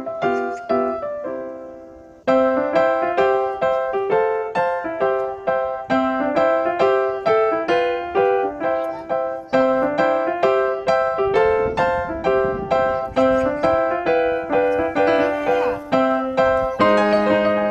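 Background music: a gentle piano melody of evenly paced single notes. It fades out about two seconds in and then starts over.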